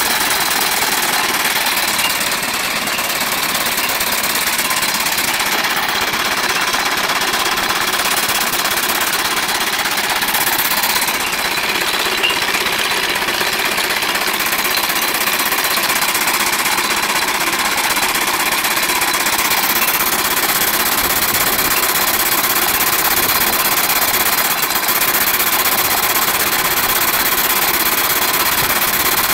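Live-steam 2-inch scale Burrell Thetford Town showman's engine running under way in third gear: a steady, rapid, repetitive chuff of the exhaust and clatter of the motion.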